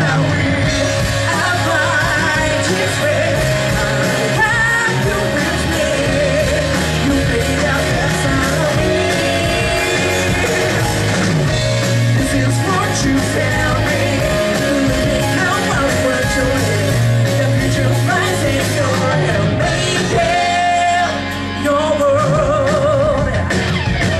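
A rock band playing live: a lead singer sings over electric guitars and bass, holding a long wavering note with vibrato near the end.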